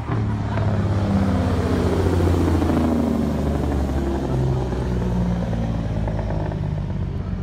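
Semi-truck diesel engine brake (Jake brake) firing hard as the truck decelerates down the track: a loud, rapid rattling bark that starts suddenly and holds for the whole pass.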